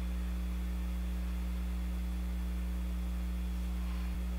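Steady electrical mains hum: a low, unchanging buzz with a few fainter overtones above it.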